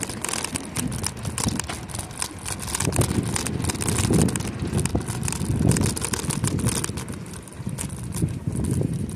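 Bicycle tyres rolling over a wooden plank bridge deck: a steady rumble with dense, irregular clattering.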